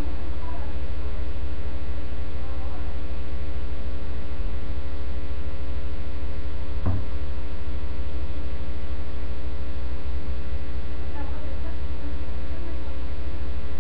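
Loud, steady electrical mains hum with a stack of overtones, picked up on a surveillance DVR's audio feed. A single short click comes about seven seconds in.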